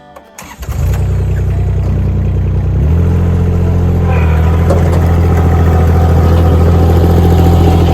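Engine of a compact piece of equipment starting to run loud under a second in. It is throttled up about three seconds in and holds steady at the higher speed.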